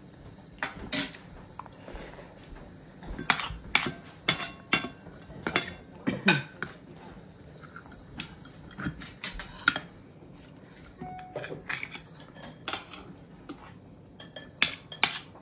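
Metal forks and spoons clinking and scraping against ceramic plates and a bowl as people eat, in irregular clusters of sharp clinks, busiest in the middle and again near the end.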